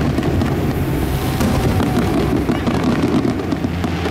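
Crowd chatter over music from loudspeakers, a dense steady din with a low, held bass.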